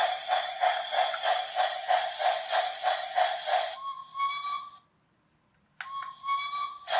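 Electronic steam-engine sound effect from the Greendale Rocket toy train's speaker: rhythmic chuffing at about three a second, then a steady whistle tone. After a second's pause, a click and the whistle sound again, and the chuffing starts over near the end.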